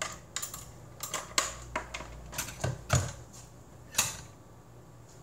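Steel beaters being pushed and snapped into the sockets of a white electric hand mixer: a string of irregular sharp clicks and rattles, the loudest near the end.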